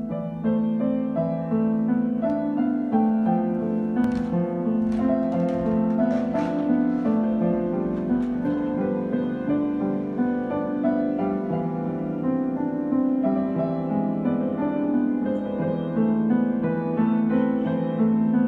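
Solo piano music, a waltz, playing steadily.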